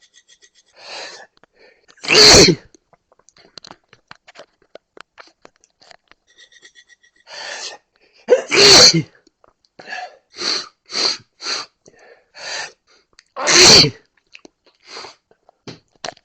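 A person sneezing three times, loud and sudden, about two, eight and a half and thirteen and a half seconds in, with shorter, quieter bursts of breath between. The sneezes are set off by the smell of coffee, an allergic reaction.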